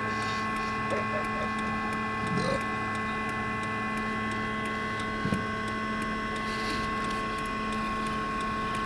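A steady hum of several held tones at an even level, with a few faint knocks.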